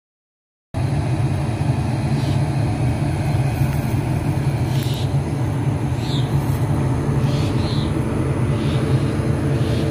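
Steady low rumble of a train running, cutting in abruptly just under a second in.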